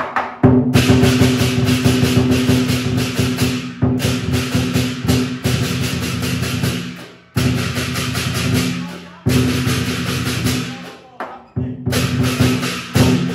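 Lion dance percussion: a drum beaten in fast strokes, with crashing cymbals and a ringing gong. The playing breaks off briefly about four times and starts up again.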